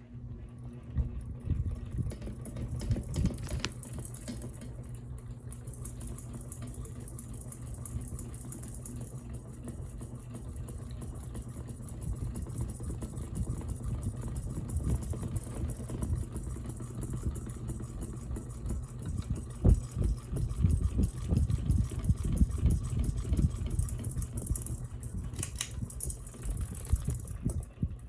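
Ceiling fan running: a steady motor hum with an uneven low rumble and occasional clicks. The fan has a tick that tightening a blade has not cured, and its source has not yet been traced.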